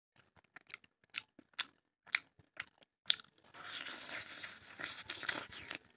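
A person chewing crunchy food close to the microphone: a few separate crisp bites, then continuous crunching from about three and a half seconds in.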